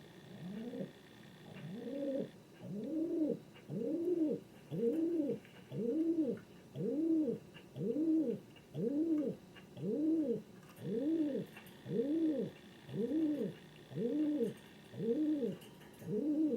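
King pigeon cooing over and over in an even series of about one coo a second, each coo rising and then falling in pitch.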